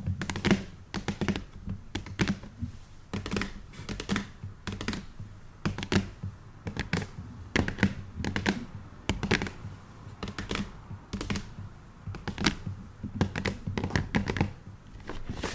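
Irregular light tapping on the outside of a makeup advent calendar box, several short taps a second.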